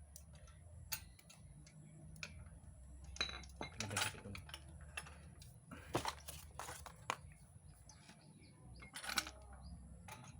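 Scattered metallic clicks and clinks from a 2-ton car jack and its lever handle being handled, a few sharper knocks among them, over a low steady hum.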